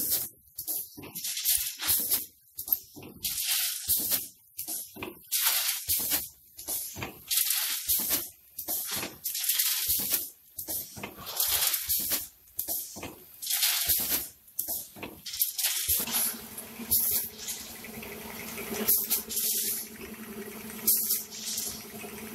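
Automatic snack pouch packing machine running: short hisses of compressed air from its pneumatic cylinders and rattling, repeating in quick irregular succession. About two-thirds of the way through, a steady low machine hum sets in under them.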